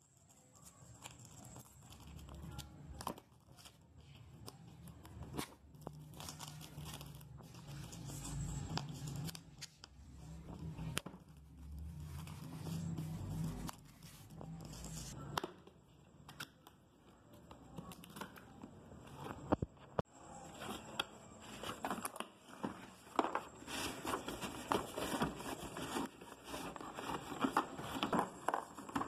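Clear plastic shrink-wrap being torn and crinkled off a cardboard tool-set box, with rustling and sharp handling clicks; the crackling grows louder and busier about two-thirds of the way in.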